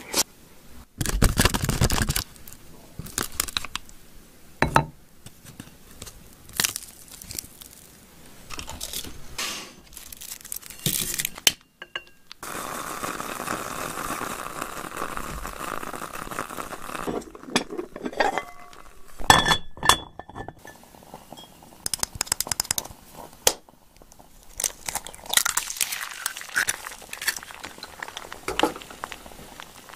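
Close-miked eating: a wooden spoon knocking and scraping in a ceramic bowl of rice mixed with soy-marinated crab, with chewing and crunching. Later comes a steady hiss, then scattered clicks, and near the end an egg starts to sizzle in oil in a small pan on a tabletop burner.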